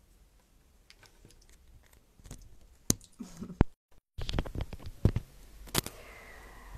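A wired earphone cable being handled close to the microphone: irregular clicks, taps and rubbing that grow louder after a short total cut-out of the sound a little before four seconds in.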